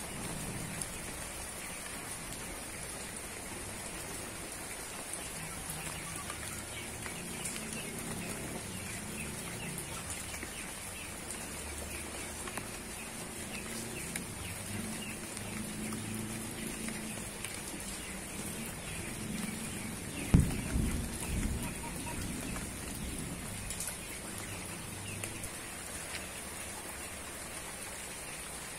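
Steady rain falling on garden foliage, a constant hiss with many small drop ticks. A single low thump stands out about two-thirds of the way through.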